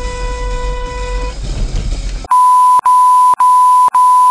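Low car-cabin rumble with a car horn sounding for about a second and a half at the start. About two seconds in, a loud steady beep tone replaces every other sound, broken by short gaps about twice a second: an edited-in censor bleep.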